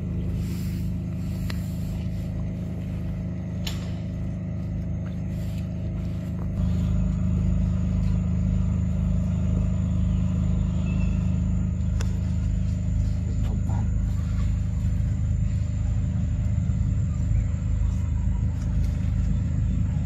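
Steady low mechanical hum, louder from about six and a half seconds in.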